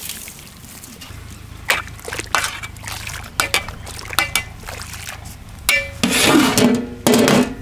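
Water sloshing and splashing in a large aluminium pot holding goat legs in turmeric water, with scattered sharp knocks. About six seconds in comes a louder stretch of metallic scraping and clanking as the aluminium lid is put on the pot.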